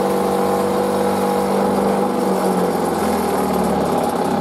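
Electric bench grinder motor running steadily at full speed, with a pencil's tip held to the spinning wheel to sharpen it.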